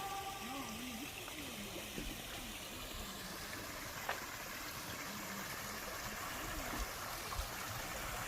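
Running water of a stream, a steady even rush, with faint voices in the distance.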